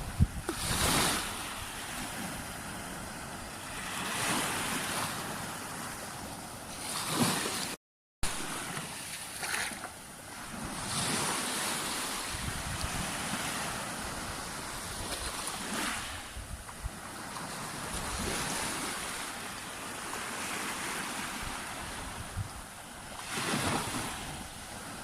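Sea waves breaking and washing on a beach, the surf swelling and fading every few seconds. The sound cuts out completely for a moment about eight seconds in.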